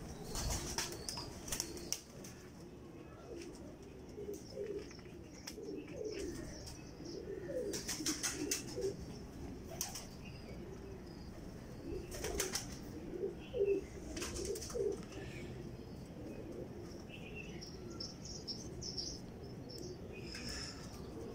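Lahore tippler pigeons cooing repeatedly in the loft, with occasional sharp flutters of wings.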